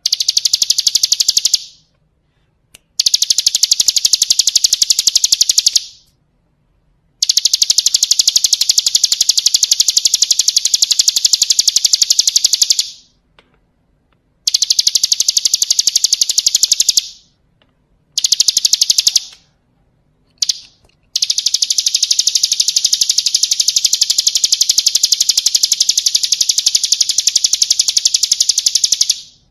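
Ciblek kristal (a prinia) singing rapid, high-pitched trills in phrases of one to eight seconds, with short pauses between them. The longest phrase runs through the last third.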